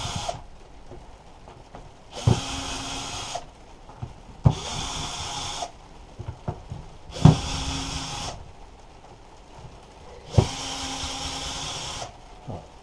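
Cordless electric screwdriver spinning in four short bursts of about a second each, backing out the screws of a plastic hedge-trimmer casing.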